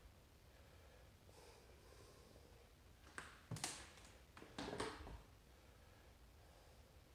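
Near silence: room tone in an empty room, with a few faint short knocks and rustles a little past the middle.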